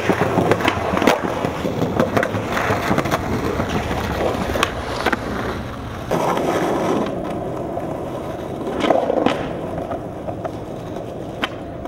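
Skateboard wheels rolling steadily over concrete and asphalt, with a few sharp clacks of the board popping and landing, near the start, about four and a half seconds in and near the end.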